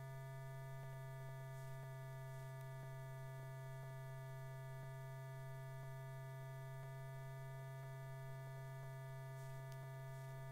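Steady electrical hum with several fainter steady tones above it and faint scattered ticks: the background noise of an old film soundtrack transfer.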